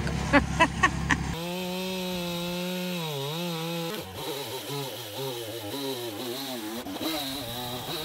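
Tractor engine idling briefly, then a Stihl chainsaw running steadily before cutting across the end of a hemlock log, its engine note dipping and rising as the chain takes the load.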